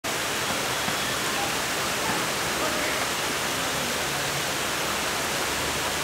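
Steady rushing of water pouring down the glass panels of an artificial stage waterfall, with faint voices in the background.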